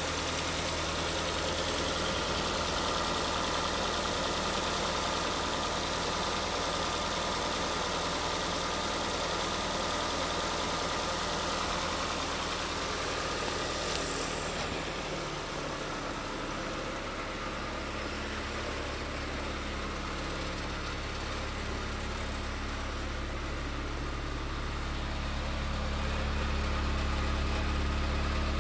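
A 2011 Ford Fiesta's 1.6-litre four-cylinder engine idling steadily. About halfway through, the low exhaust hum grows stronger as it is heard at the tailpipe.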